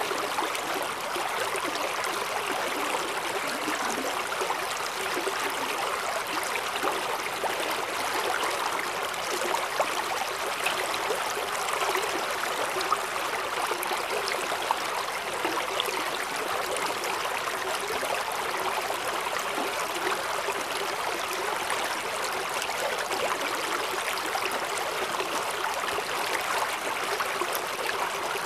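Mountain valley stream running: a steady, even rush of flowing water that does not change.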